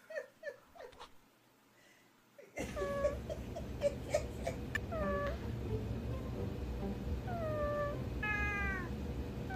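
Sleeping orange tabby cat making a series of short mews that fall in pitch, about half a dozen, over a steady low background hum. Both start about two and a half seconds in, after a few faint short sounds and near silence.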